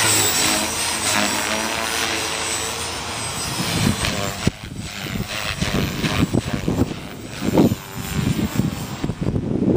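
450 Pro electric RC helicopter in flight, its rotor and motor whine wavering in pitch as it is flown in gusty wind. The whine fades after about four and a half seconds, leaving wind buffeting the microphone.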